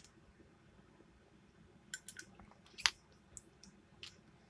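A few light clicks and taps of small hard objects being handled, bunched between about two and four seconds in, the loudest just before three seconds.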